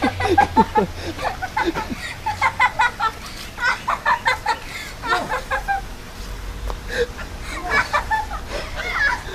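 Children laughing and shrieking in quick high bursts, with bits of excited chatter.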